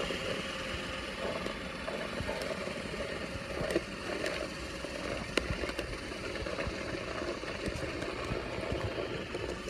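Robot vacuum cleaner running as it rolls across concrete: a steady motor and brush whir, with a couple of sharp clicks about four and five and a half seconds in.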